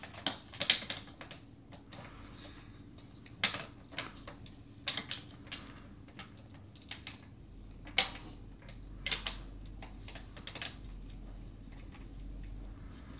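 Scattered clicks and rustles of fabric curtains on a toy puppet theatre being pulled and bunched along their rod.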